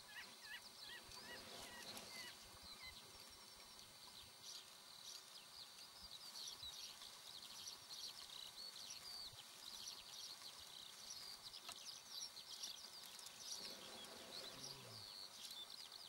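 Faint chirping of birds: many short, quick high calls following one another throughout.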